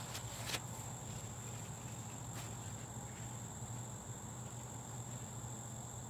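Garden ambience with a steady low hum and a thin, steady high-pitched whine. Over it come a few light clicks and rustles as someone moves among cucumber vines close by, the sharpest about half a second in and another a couple of seconds later.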